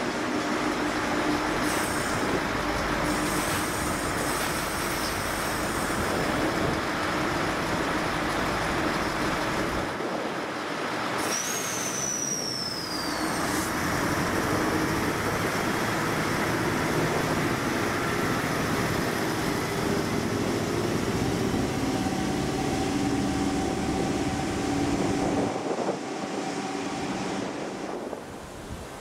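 Two coupled V/Line Sprinter diesel railcars running past and pulling away, a steady diesel engine drone over wheel and rail noise. A short high squeal falls in pitch about eleven seconds in, and the sound drops away near the end.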